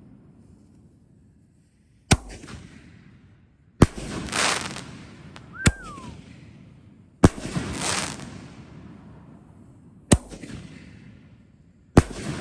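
4-inch canister firework shells firing in sequence: six sharp booms a second or two apart. Several are followed by a long crackling hiss that swells and fades. A brief falling whistle comes near the middle.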